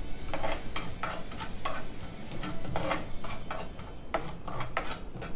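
Mustard seeds popping and spluttering in hot sesame oil in a kadai: irregular crackling pops, several a second, the sign that the oil is hot enough for the tempering.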